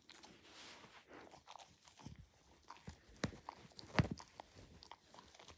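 Dachshund gnawing at a plush teddy, its teeth working the fabric in soft crackles and scratchy rustles, with two sharper clicks about three and four seconds in.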